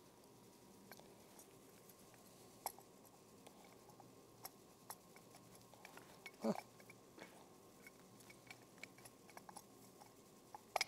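Faint handling noise of a snowmobile carburetor in gloved hands: scattered small clicks and taps of parts as a stuck, dry gasket is worked at. A brief low voice sound comes about six and a half seconds in, and a sharper click comes near the end.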